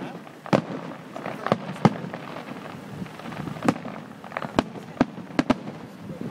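Aerial fireworks bursting: a string of sharp bangs at irregular intervals, about nine in all, heard after a delay that shows how far the shells burst from the listener.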